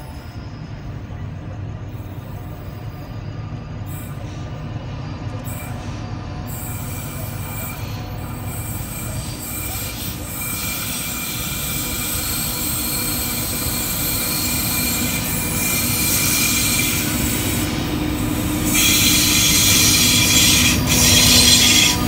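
Diesel-hauled freight train approaching and entering the station, its locomotive's engine drone growing steadily louder. A high-pitched squeal and hiss from the wheels builds and is loudest in the last few seconds as the locomotive passes close by.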